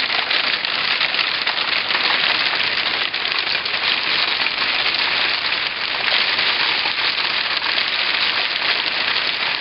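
Hail falling hard: a dense, steady patter of countless small hailstones striking a tiled floor and wall.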